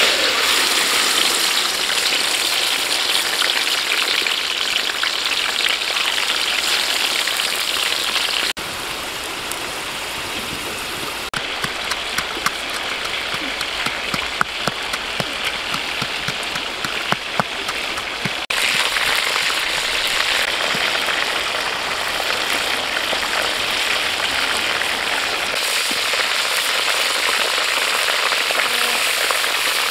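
Hot oil sizzling hard in a large wok as a whole plucked goose goes in, then the goose and a catfish frying together. The sizzle starts suddenly at the beginning and drops lower for several seconds in the middle, with scattered sharp pops, then comes back full.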